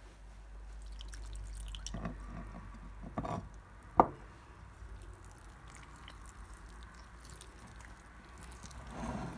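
Milk poured from a bowl into a glass bowl of thick semolina batter. A sharp knock about four seconds in is followed by the wet squish of the batter being stirred with a spatula.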